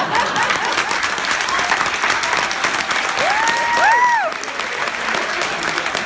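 Audience applauding, with a couple of high rising-and-falling cheering calls from the crowd about three and a half seconds in.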